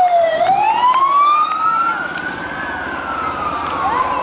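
A siren wailing in a slow cycle: its pitch falls, climbs for about two seconds, then slowly falls again.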